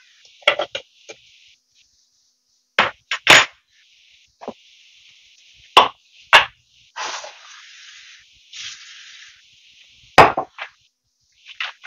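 Irregular sharp knocks and clatter of kitchen utensils against pans and dishes, about eight hits spread out with two short scraping rushes in the middle, over a faint steady hiss.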